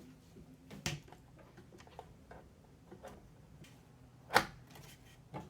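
Scattered clicks and taps of computer parts being handled during PC reassembly, with one sharp click about four seconds in.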